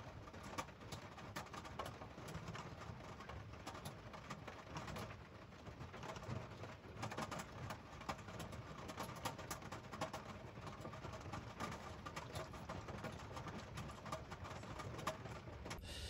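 Faint, dense patter of rain on a camper van's roof, heard from inside, with a soft low cooing sound over it.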